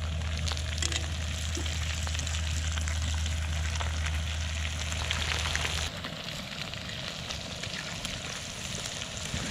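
Cornmeal-and-flour-coated crappie fillets and backbones deep-frying in oil in a cast-iron skillet, a steady sizzle with dense crackling. A low steady hum underneath stops about six seconds in, and the sizzle gets a little quieter.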